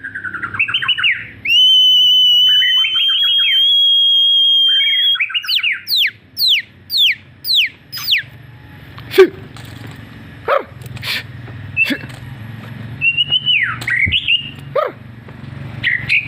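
White-rumped shama (murai batu) in full song: long, high, steady whistled notes broken by fast trills, then a quick run of downward-sweeping notes about six seconds in, followed by scattered sharp calls.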